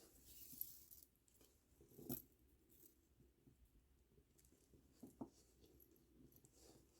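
Near silence with faint handling noise: plastic pony beads and string being worked by hand, with a small click about two seconds in and another about five seconds in.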